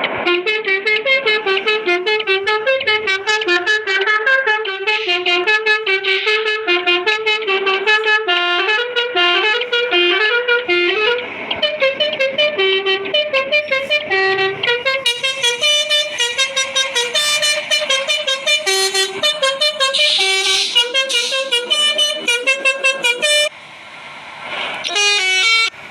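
Basuri telolet horn, a multi-tone electric air horn of the kind fitted to Indonesian buses, playing a fast tune of short stepped notes almost without pause. It breaks off briefly near the end.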